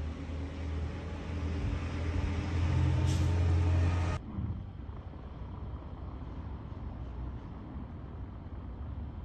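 Gusty wind in a heavy snowfall rumbling on the microphone, swelling louder and then cutting off suddenly about four seconds in. After that comes a quieter, steady background hum.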